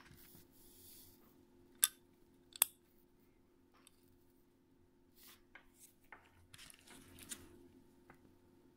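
Small plastic PJ-320D 3.5 mm audio jack being handled and pressed into its holes on a circuit board: two sharp clicks under a second apart about two seconds in, then scattered soft scrapes and small ticks.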